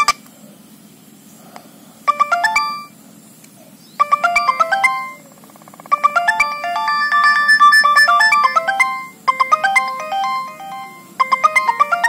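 Nokia 6220 mobile phone playing one of its built-in polyphonic ringtones through its loudspeaker: a synthesized melody of quick stepped notes, starting about two seconds in and running in short phrases with brief pauses.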